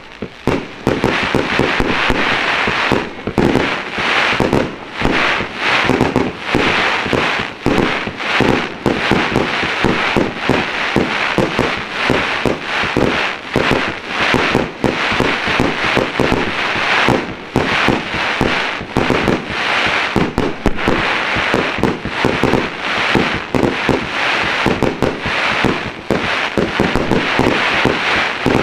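Aerial fireworks shells bursting at close range in a dense, continuous barrage: many sharp bangs a second, overlapping, starting abruptly and never letting up.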